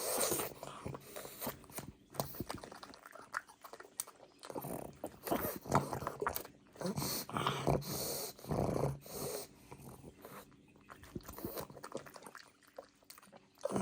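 Pug chewing and crunching cucumber, in irregular bursts with pauses between mouthfuls.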